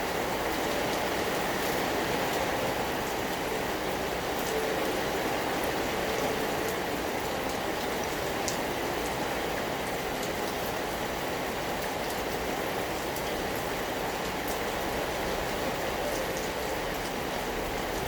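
Steady rain falling, with scattered drops ticking sharply on a surface.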